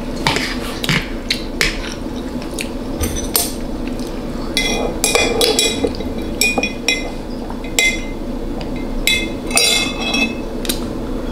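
Metal knife and fork clinking and scraping against a plate, in a run of short, ringing clinks that come thicker from about three seconds in.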